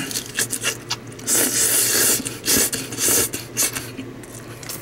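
Close-up eating sounds: chewing and slurping a mouthful of rice noodles and crisp salad leaves, with chopsticks scraping and clicking in a plastic lunchbox tray. A few short hissing bursts come through the middle, among scattered clicks.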